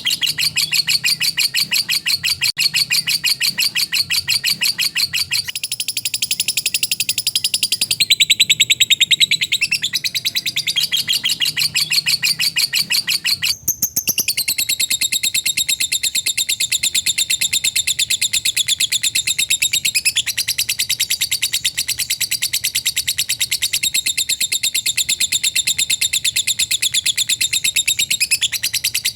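Lovebird's long, fast chattering song (ngekek panjang): an unbroken run of rapid, high, shrill chirps, with one short break about fourteen seconds in.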